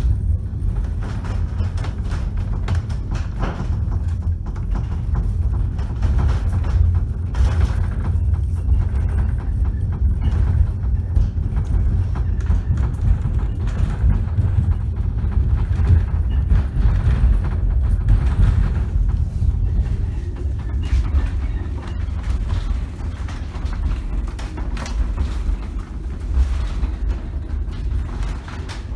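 Cable-hauled funicular car moving along its rails, heard from inside the car: a steady low rumble with irregular clicks and knocks from the wheels and track.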